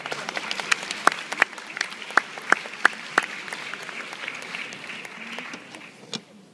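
Theatre audience applauding, with one person's loud claps close by standing out from the crowd's clapping; the applause dies away near the end.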